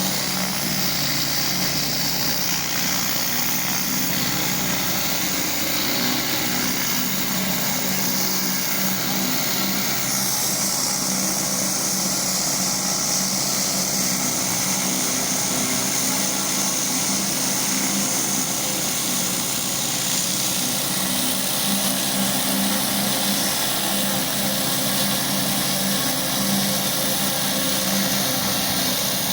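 Gas-engine pressure washer running steadily under load, with the hiss of its water jet spraying. The high hiss shifts in tone about ten seconds in as the spray moves.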